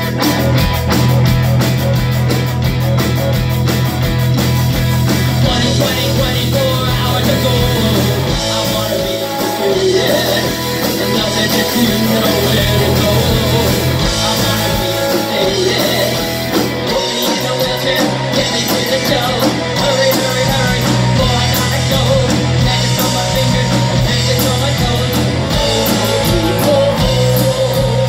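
Live rock band playing loud: electric guitars, bass-heavy low end and a drum kit, with a singer's vocals over the top.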